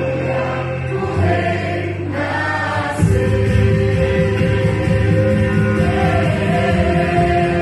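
Vocal group singing a Christian worship song in held, layered chords, swelling louder about three seconds in.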